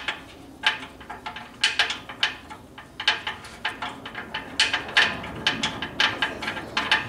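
Socket ratchet on a long extension with a 21 mm socket, clicking in short runs of rapid ticks with brief pauses between, as it is swung back and forth on a lower control arm bolt.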